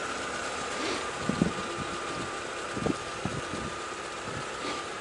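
Vehicle engines idling steadily, with a few dull knocks about a second and a half and three seconds in.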